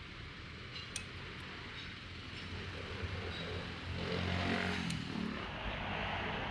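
Steady workshop background noise with a low hum, broken by two sharp metal clicks, about a second in and near five seconds: tools working on an A/C compressor clutch as its pulley snap ring is taken off.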